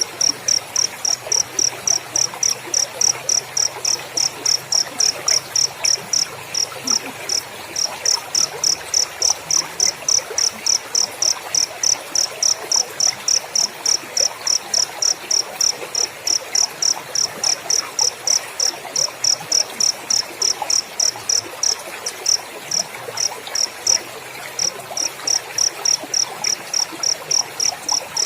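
Cricket chirping in a steady, even rhythm, about four high-pitched chirps a second, with a few short pauses.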